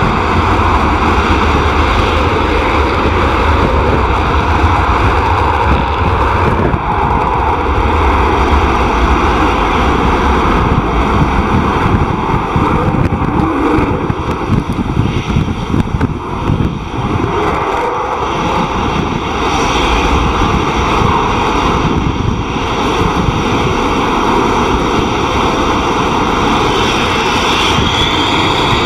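Panavia Tornado jet's twin turbofan engines running, a loud, steady jet noise that wavers a little in level about halfway through.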